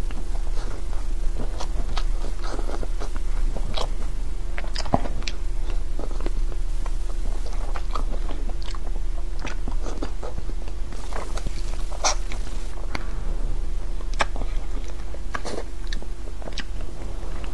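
Close-miked eating sounds: a man biting and chewing braised pig tail, with irregular wet smacks and clicks of the mouth. A steady low hum runs underneath.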